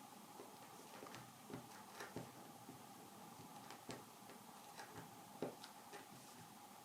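Faint, irregular small ticks and scratches of a knife tip scoring lines into a wild cherry teaspoon handle, over a steady faint hum.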